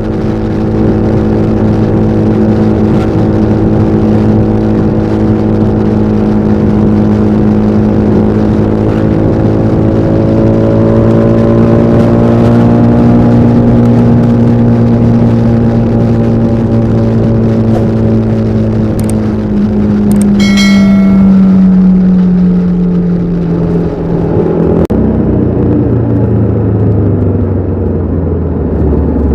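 TVS Apache RR310's 312 cc single-cylinder engine running under way. Its pitch climbs gently, holds, then drops about two-thirds of the way through as the bike slows. A brief high-pitched tone sounds around the same point.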